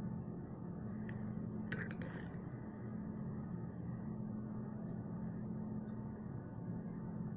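Small scissors snipping crepe hair, a few quick metallic clicks and snips about one to two seconds in, with a couple of faint ticks later, over a steady low hum.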